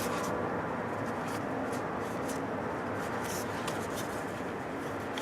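Time-Sert M8 x 1.25 tap being turned by hand in a stripped exhaust-manifold stud hole, cutting new threads in the cylinder head: a steady low scraping with a few faint light clicks.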